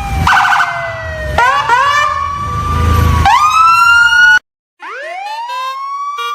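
A siren-like wail of pitched tones that slide slowly down, then rise and fall, with a fast pulsing tone near the start. The sound cuts out suddenly about four and a half seconds in, then resumes with a rising glide.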